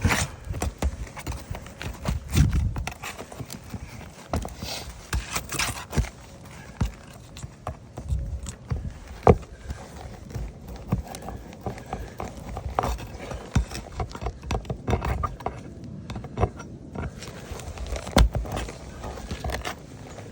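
Irregular knocks, taps and scrapes of a flat pry bar working under roof shingles to get at the nails, several sharp strikes standing out among quieter scraping.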